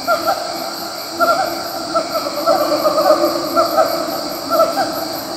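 Siamang (Symphalangus syndactylus) calling: a run of short, rising whoops repeated a few times a second. Behind them runs a steady, high-pitched, pulsing insect drone.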